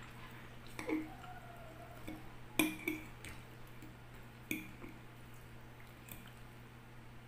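A metal fork clinking against a glass bowl while tossing a salad of moist cooked greens. There are a handful of sharp, short-ringing clinks, the loudest about two and a half seconds in.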